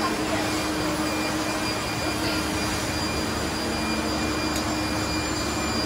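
Steady din of running machinery in a pump machining workshop: an even rushing noise with a constant low hum and a few high, steady tones.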